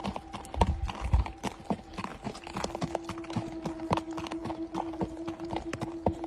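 Horse's hooves clip-clopping irregularly, with a couple of heavier thuds about a second in. A steady humming tone runs underneath.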